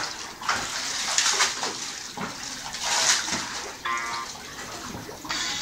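Water sloshing and splashing in a shallow inflatable kiddie pool as a child wades through it, with a string of irregular splashes.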